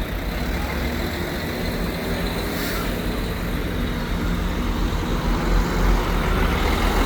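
Tour bus diesel engine running steadily close by, with a brief hiss a little under three seconds in.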